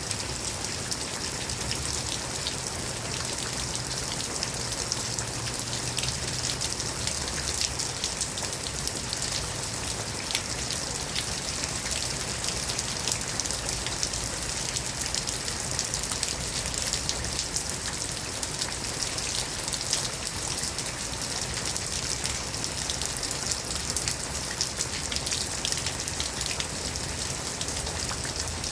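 Steady rain falling, a dense hiss full of small drop ticks as it patters on surfaces.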